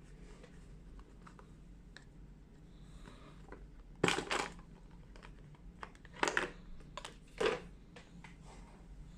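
Handling noise from a smartphone and its packaging being picked up and moved on a table: three short rustling knocks, the loudest about four seconds in, with faint clicks between.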